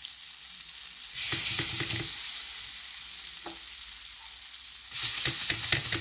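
Roti batter sizzling on a hot pan: a loud sizzle starts about a second in and fades, then a second sizzle starts about five seconds in, each with crackling underneath.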